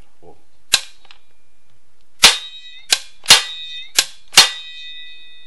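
Spring-loaded chain-brake mechanism of a Stihl MS 250-series chainsaw, mounted on the bare housing, snapped on and off by hand: six sharp metallic clacks, each followed by the brake spring ringing on.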